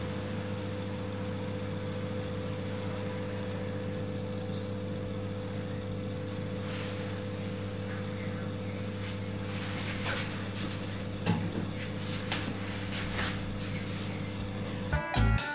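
Steady low machine hum with scattered faint clicks and ticks in the second half. Music starts right at the end.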